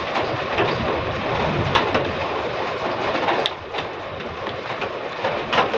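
Heavy rain drumming steadily on a zinc (corrugated metal) roof, with a few short sharp clicks over it.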